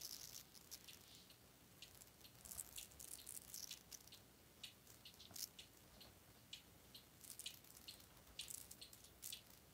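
Near silence with the faint, somewhat uneven ticking of a weight-driven mechanical cuckoo clock, about two ticks a second.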